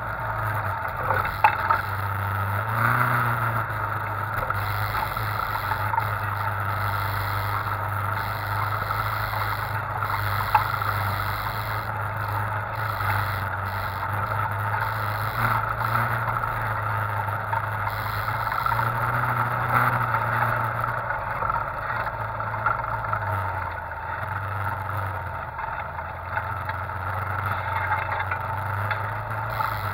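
Side-by-side off-road vehicle's engine running steadily while driving a rough dirt trail, its pitch rising briefly a few times as it is throttled. A few sharp knocks from the vehicle going over bumps.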